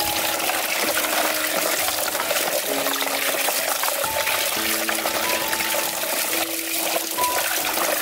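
Steady rushing water, loud and even, with background music playing slow held notes over it.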